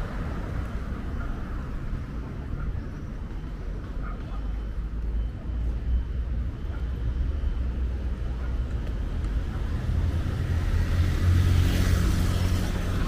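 Steady road traffic on a city avenue, a low rumble that grows louder and swells near the end as a vehicle passes close.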